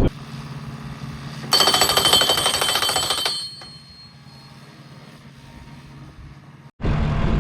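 A welding arc buzzing and crackling with a fast, even sputter for about two seconds, starting about a second and a half in, over a low steady hum.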